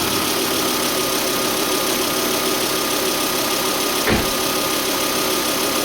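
2004 Volvo XC70's turbocharged five-cylinder engine idling steadily after a rev, with a thin steady whine over it that the owner suspects comes from the turbo. A single thump about four seconds in.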